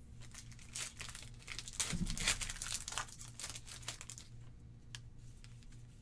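Foil wrapper of a Pokémon Guardians Rising booster pack being torn open and crinkled by hand, in irregular crackles that are loudest about two seconds in.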